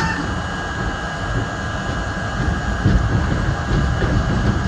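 R32 subway car running along the track, heard from inside the car: a steady rumble of wheels on rail and traction motors with a thin, steady high whine. The rumble grows louder and rougher, with low thumps, about three seconds in.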